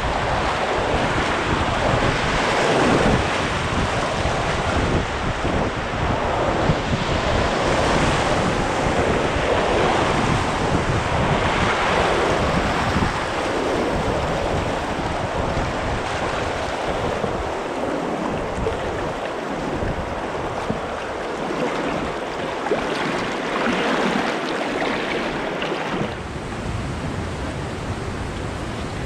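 Rushing whitewater of a river rapid around an open canoe, steady and loud, with wind buffeting the microphone in the first half.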